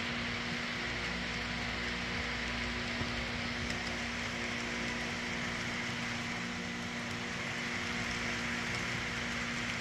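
Freight cars of a model train rolling along the track: a steady rolling hiss with a constant low hum underneath.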